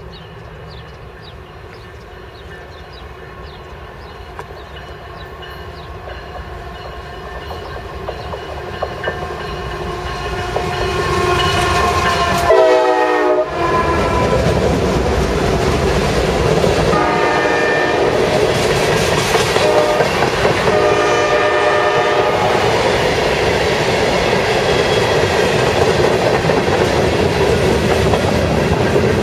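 Iowa Interstate freight train approaching and passing, its diesel locomotives' horn sounding and growing louder as they near. The horn drops sharply in pitch as the locomotives go by, a little under halfway through, and two more horn blasts follow. After that the train's steady, loud rolling noise of wheels on rail runs as the freight cars pass.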